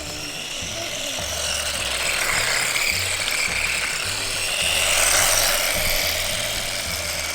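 Electric drive motor and gears of a 1/14-scale four-wheel-drive RC truck whining as it drives, swelling louder twice, over background music with a steady bass beat.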